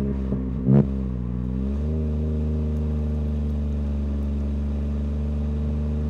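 Toyota GR Corolla's turbocharged three-cylinder running through an SXTH Element aftermarket exhaust, heard at the tailpipe while driving. The revs fall for the first couple of seconds, with a single sharp pop a little under a second in, then the engine holds a steady drone.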